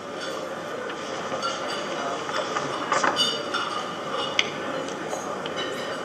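Steady hum of a large room with scattered light clinks and clicks of glassware and cutlery.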